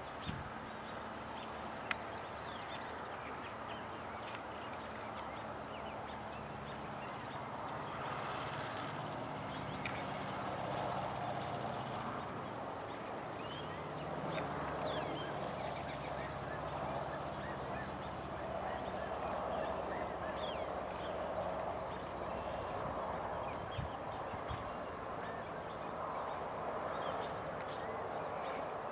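A cricket-like insect chirping in a steady, rapidly pulsing high trill that does not let up, over a rustling hiss.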